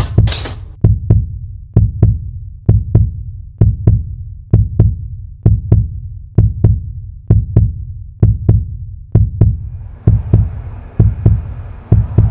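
Heartbeat sound effect: paired low thumps, lub-dub, about one pair a second and very even. A soft hiss comes in under it near the end.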